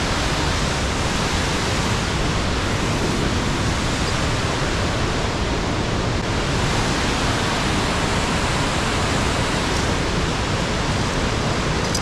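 Waterfall and white-water torrent rushing through a rocky gorge: a steady, even wash of water noise.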